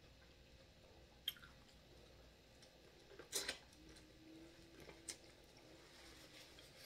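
Quiet eating sounds as corn on the cob dripping with seafood-boil sauce is bitten and chewed. There is a soft wet click about a second in, a louder squishy bite around three seconds in, and a couple of small clicks near five seconds.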